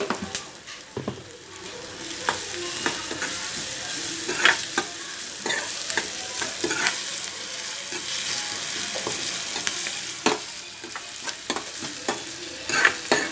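Chopped onions and green chillies sizzling in hot oil in a kadai, with a steady hiss, while a metal spoon stirs them, scraping and clinking against the pan at irregular moments.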